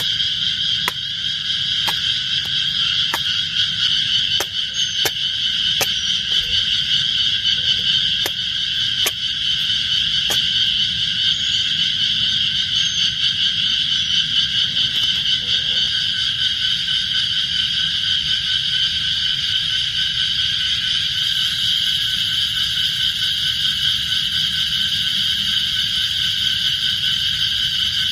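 Sharp knocks roughly once a second for about the first ten seconds as a knife chops at a wooden stick, sharpening its end. Under them a loud, steady, high-pitched chorus of calling animals.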